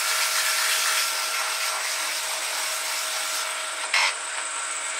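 Wood lathe running while a turned wooden handle is sanded by hand as it spins: a steady hiss with a faint steady whine, and a brief sharper scrape about four seconds in.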